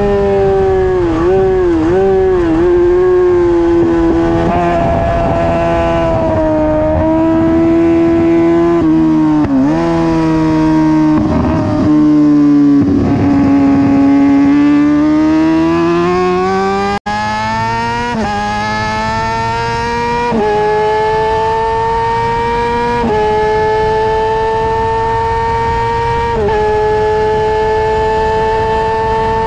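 A 2009 Kawasaki ZX-6R's inline-four engine running at high revs under racing load, heard from onboard with wind noise. In the first half the revs dip and recover several times through braking, downshifts and corners. In the second half they climb steadily, with four upshifts, each a short drop in pitch.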